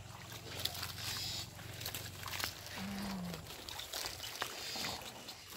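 Water hyacinth rustling and crackling, with small splashes and sloshes of shallow water, as the plants are pulled apart by hand. A brief low tone sounds about three seconds in.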